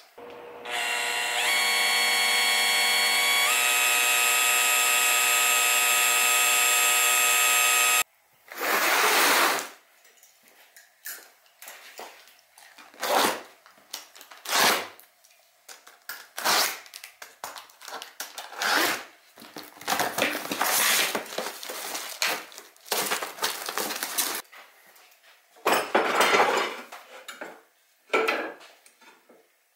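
Electric hand drill running for about eight seconds as it bores through a metal spacer held in a vise, its pitch stepping up twice before it cuts off. Then a string of short, irregular scrapes and rustles from handling a cardboard box and drill press parts.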